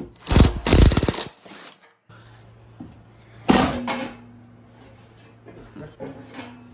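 A cordless drill runs briefly, backing a screw out of a thickness planer's plastic top housing. After a cut, the planer's plastic top panel knocks loudly once as it is handled, over a low steady hum.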